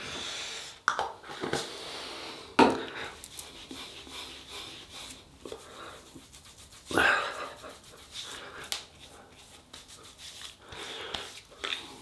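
Hands rubbing moisturising cream into the face and neck: soft, irregular skin-rubbing noise with breathing, a couple of short sharp clicks in the first three seconds and a louder rush of noise about seven seconds in.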